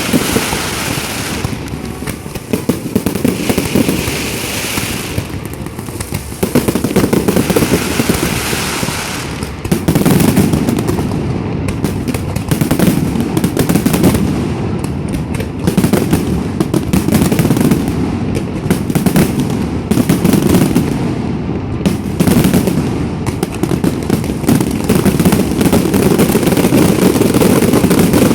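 Fireworks display: a dense run of booms and crackling from many bursting shells, coming in waves that swell and ease every few seconds.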